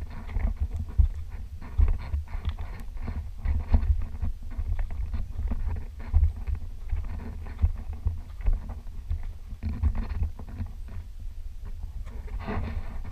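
Wind buffeting a handheld camera's microphone as a low, uneven rumble, with irregular scuffs and crunches of footsteps on loose limestone gravel and of the camera being handled.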